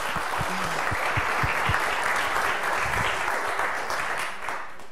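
Audience applauding, fading out shortly before the end.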